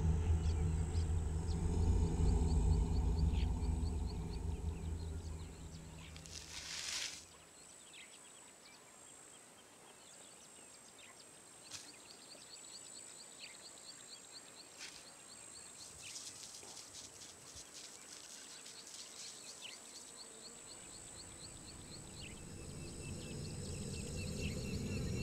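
A low rumbling drone fades out over the first six seconds or so, leaving quiet open-air ambience with rapid runs of short high chirps; near the end the low drone swells back in.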